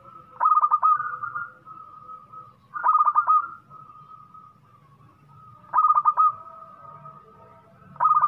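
Local zebra dove (perkutut) cooing its song: four bouts of quick repeated coo notes, one every two and a half to three seconds.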